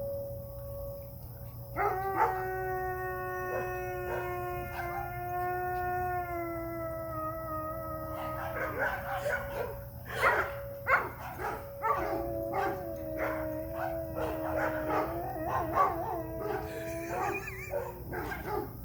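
Sheepadoodle howling along to a tornado siren, whose steady tone runs underneath. About two seconds in the dog holds one long howl that slides slowly lower, then from about eight seconds it breaks into a run of yips and short barks mixed with more howls.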